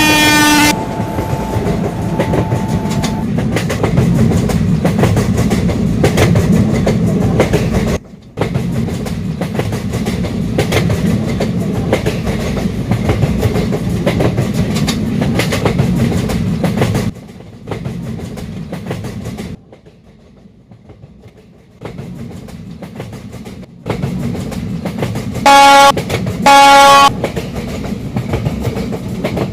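Express train running on the rails, a steady rumble with wheel clatter; a horn blast ends in the first second and two short, loud horn blasts sound a second apart near the end. The rumble drops off for a few seconds past the middle.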